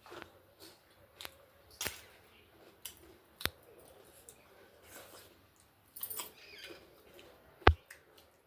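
Close-up eating sounds: food being chewed, with several sharp clicks and taps. The loudest click comes near the end, and there is a crunchy, scratchy stretch a little after the middle.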